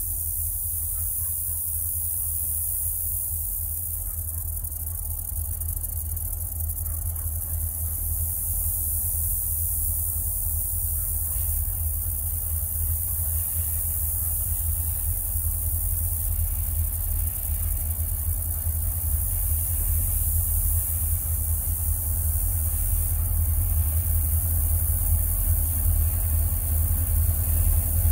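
Diesel locomotives approaching at the head of a freight train: four EMD SD40-2s with their two-stroke V16 engines, heard as a low, steady engine rumble that grows slowly louder, under a steady high hiss.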